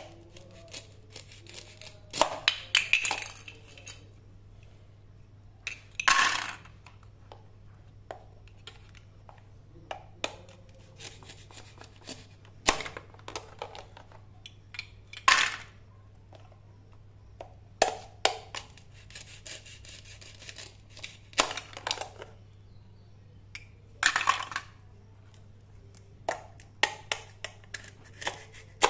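Plastic toy fruit being cut apart with a toy knife on a plastic cutting board: irregular clacks and taps of plastic on plastic, with a few short rasps as the Velcro-joined halves are pulled apart, and pieces clinking into a ceramic bowl.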